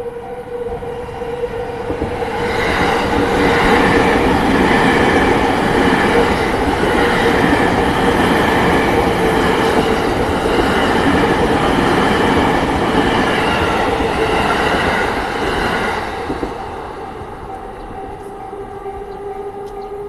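JR Yamanote Line E231-series electric train passing over a level crossing: the rail and wheel noise builds about two seconds in, runs loud through the middle and dies away around sixteen seconds. The crossing's electronic warning alarm rings steadily under it throughout, plainly heard before and after the train.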